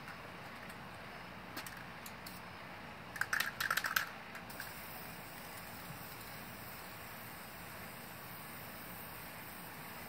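Aerosol spray-paint can rattling in a quick run of clicks about three seconds in as it is shaken, then a faint steady hiss as the paint is sprayed onto the garage door.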